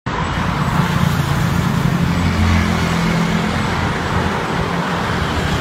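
Road traffic: a motor vehicle's engine hum over a steady rush of road noise, the hum loudest around two to three seconds in and then fading as the vehicle passes.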